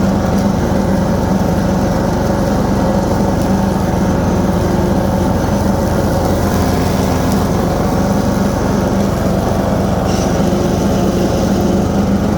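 Toro TimeCutter 16-42Z zero-turn mower's 16 horsepower engine running steadily under load while its 42-inch deck cuts taller grass.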